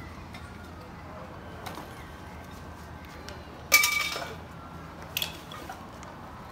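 Busy street background with a sharp metallic clank a little past halfway through, which rings briefly and dies away, followed by a smaller double clink of metal about a second and a half later.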